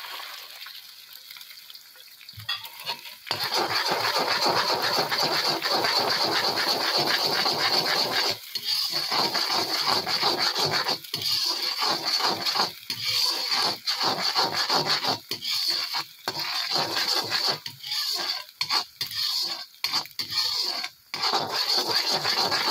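Eggs sizzling in hot oil in an iron kadhai, then from about three seconds in a steel slotted spatula scraping and stirring them against the iron in quick repeated strokes. The strokes come in choppier bursts with short pauses from about eight seconds on.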